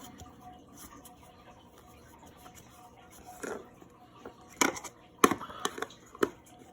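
Handling of a plastic pressed-powder makeup compact: after a quiet start, a handful of sharp separate clicks and taps in the second half.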